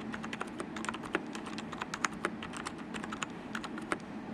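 Typing on a Lenovo Legion K300 gaming keyboard: a quick, uneven run of key clicks, several a second, with no loud clack between them.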